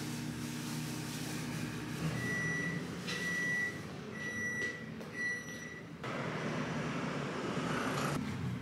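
Four short, steady electronic beeps about a second apart, over a low steady hum.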